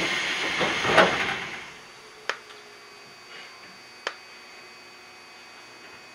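Compressed air hissing from a stopped Iyotetsu 3000 series electric train, swelling briefly and then fading out within about two seconds. Then come two sharp clicks about two seconds apart over a faint steady whine.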